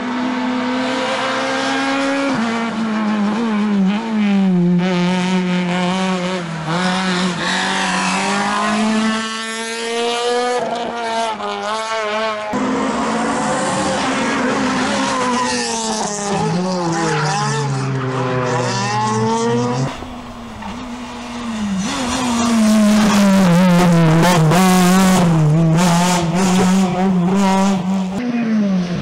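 Rally cars (Renault Clio R3 and Citroën C2 R2) driven flat out on tarmac in several separate passes. Their engines rev high and drop away through gear changes and lifts, with tyre squeal as they slide.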